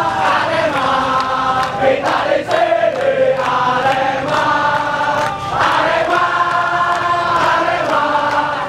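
Large crowd of football supporters singing a chant together, in long sustained sung phrases.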